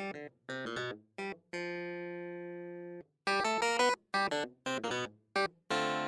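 Background music: short plucked-sounding notes and two long held chords that slowly fade, with brief silent gaps between phrases.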